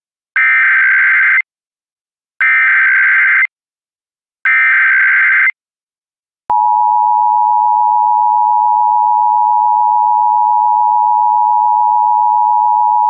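Emergency Alert System SAME header: three one-second bursts of warbling data tones, a second apart. About halfway through, the steady two-tone EAS attention signal starts.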